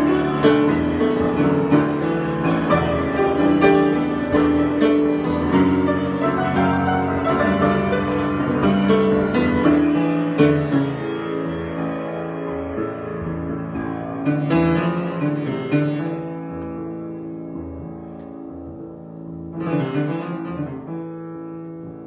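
Grand piano played solo in a free improvisation: busy chords and runs that thin out and grow softer through the second half. Two louder chords are struck, about two-thirds of the way through and near the end, each left to ring out.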